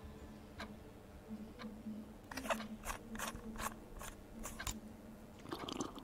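Clock ticking about once a second, joined about two seconds in by a quicker run of louder, sharper clicks for a couple of seconds, over a faint steady low hum.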